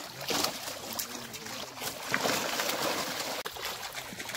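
Water splashing irregularly as fish thrash in a drag net hauled through shallow river water, with people wading around it.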